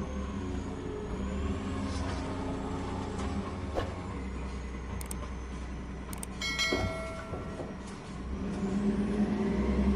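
Diesel engine of heavy logging machinery running steadily, with a few sharp knocks and a brief metallic clang and ringing about two-thirds of the way through.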